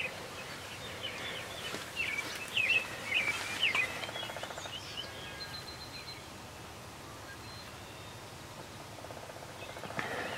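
Small birds chirping in short, quick notes, busiest between about two and four seconds in and thinning out after, over a faint outdoor hiss.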